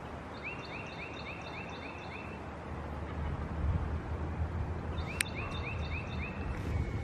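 A songbird singing a quick phrase of about eight identical rising whistled notes, about four a second, then repeating it a few seconds later, over a steady low rumble of wind. A sharp click cuts in during the second phrase.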